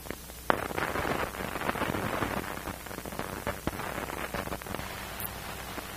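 Surface noise of a worn 1930s film soundtrack: a steady hiss with scattered crackles and pops, one sharp pop about half a second in.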